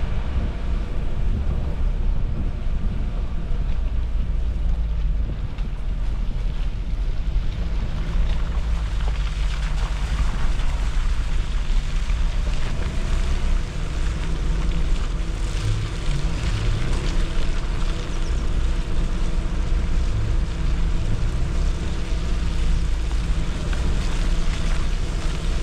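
Suzuki Jimny driving off-road: a steady low rumble of engine and tyre noise, with wind noise on the microphone.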